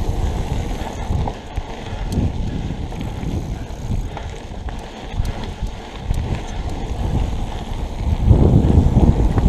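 Mountain bike riding fast down a gravel single-track trail: tyres rolling, the bike rattling with short clicks over bumps, and wind buffeting the camera microphone. It grows louder near the end.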